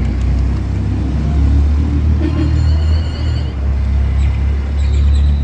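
Loud, steady low rumble of a motor vehicle, with faint high chirps about two seconds in.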